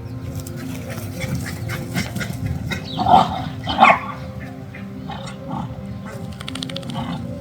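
Dog giving two short barks, about three and four seconds in, over background music.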